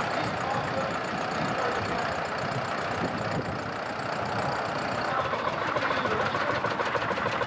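Hanomag R55 tractor's diesel engine running as it is driven past. About five seconds in, a different vintage tractor engine takes over, with a fast, even beat.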